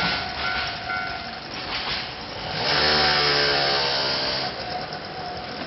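Japanese railway level-crossing warning alarm ringing in even pulses, about two a second, then stopping a little over a second in as the crossing clears. About two and a half seconds in, a louder steady hum with a pitched tone rises and fades after about two seconds.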